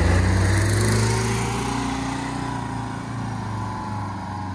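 Tour bus engine running as the bus pulls away, its sound fading gradually as it drives off.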